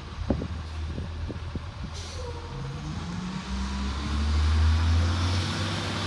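Garbage truck engine running at idle, with a few thuds early on and a short air hiss about two seconds in. Then it revs up louder from about halfway through.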